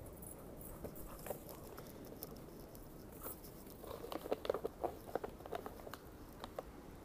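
Snow crunching underfoot: faint scattered crunches, then a quick run of louder crunches from about four seconds in to just before six.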